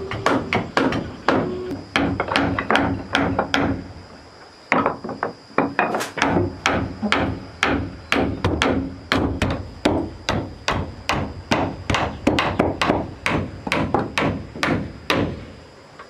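Hammer blows driving nails into wood, about three a second with a short ringing note after each strike, pausing briefly about four seconds in.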